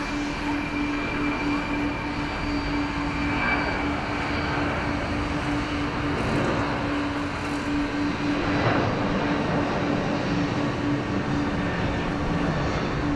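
Jet airliner engines running steadily: a constant hum over an even wash of engine noise.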